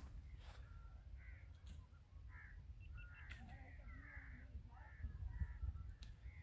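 Faint birds calling in the open: a scatter of short calls from several birds over a low, steady rumble.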